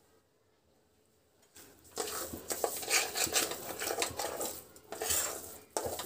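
Metal slotted spatula scraping and clinking against a kadhai as it stirs a thick grated-ginger and sugar mixture while the sugar melts. Near silence at first; the quick, repeated scrapes and clinks start about two seconds in.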